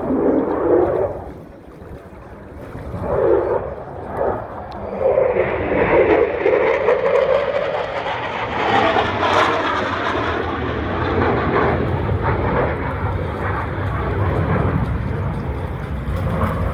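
Engine noise of an aircraft flying past in a display: it drops away briefly, then swells back from about five seconds in and stays loud.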